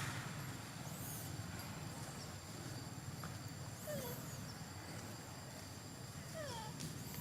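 Faint, short, descending animal chirps, a few seconds apart, over a steady outdoor background hum with a thin high steady tone.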